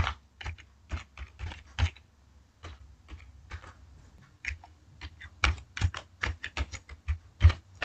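Typing on a computer keyboard: irregular key clicks, with a short lull about two seconds in and a quicker run of keystrokes in the second half.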